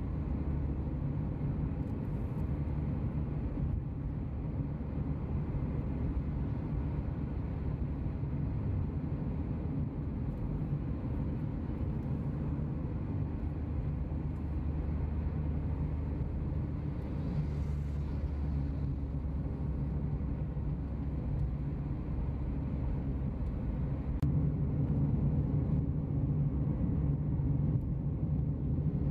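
Steady low rumble of a vehicle on the move, engine and road noise, growing somewhat louder near the end.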